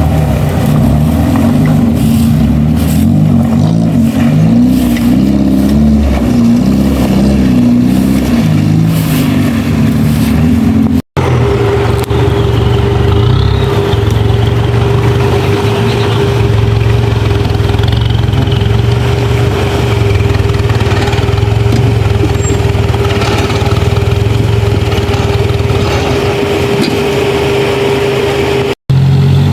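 Suzuki 4x4 off-roader's engine working under load, its pitch rising and falling. After a brief break about 11 seconds in, it settles into a steady drone with a constant whine over it.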